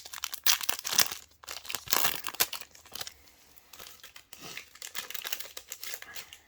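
Foil booster-pack wrapper crinkling and tearing as the pack is opened, busiest in the first three seconds, then quieter rustling of the wrapper and cards.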